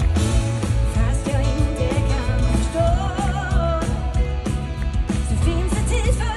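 Live pop-rock band with a female lead singer, heavy bass and drums, as heard from the crowd on a phone microphone. A held, wavering sung note stands out in the middle.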